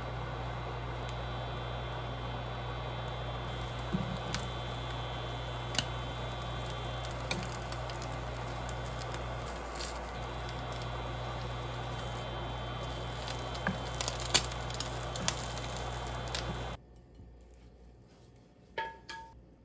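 Egg frying in a pan: a steady sizzle over a low hum from the cooktop, with a few light taps and scrapes of chopsticks and a wooden spatula against the pan. The sound cuts off abruptly near the end, and a single light clink follows on a glass plate.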